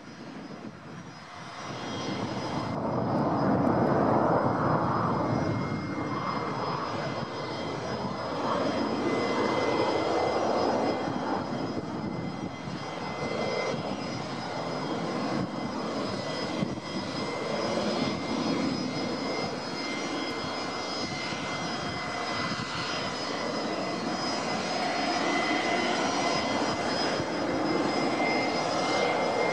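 Lockheed Super Constellation's four Wright R-3350 turbo-compound radial piston engines running as the airliner flies its final approach, gear down. The engine noise swells over the first few seconds and then holds steady.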